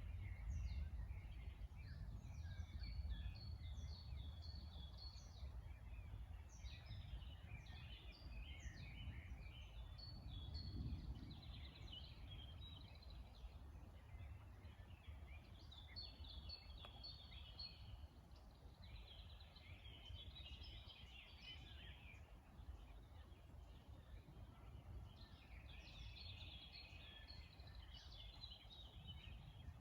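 Songbirds singing in a spring chorus: short chirps and trilled phrases come one after another and overlap, over a faint steady low rumble.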